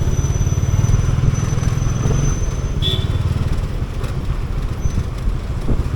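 Motorcycle engine running steadily under way on a city street, its low rumble easing off a little after about two seconds.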